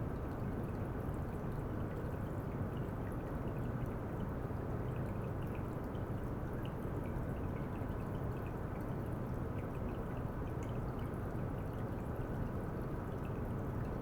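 Water running steadily, with many small scattered drip-like ticks over the flow.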